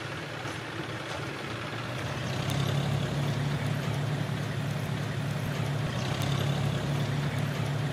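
Thick curry boiling hard in a large aluminium pot over a wood fire: a steady bubbling rumble that grows a little louder after about two seconds, with a few faint crackles.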